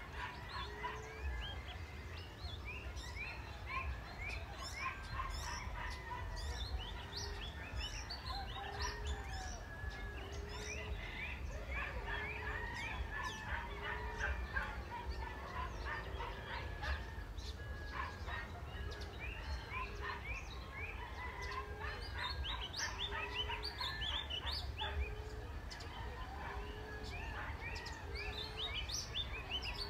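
Emerald dove cooing: a soft, low coo repeated steadily about every one and a half seconds, with other small birds chirping and trilling over it.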